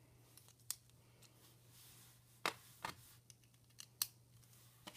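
Lego Technic plastic parts clicking and clacking in the hands as a differential and axles are fitted into a beam frame: a handful of separate sharp clicks, the loudest about two and a half and four seconds in.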